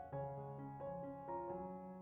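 Background piano music: a slow melody over chords, with a new note every few tenths of a second.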